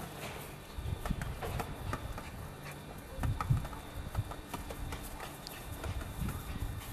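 Irregular soft thumps and scuffles of a small poodle nosing and pawing a ball along the foot of a brick wall, with the ball knocking against the bricks.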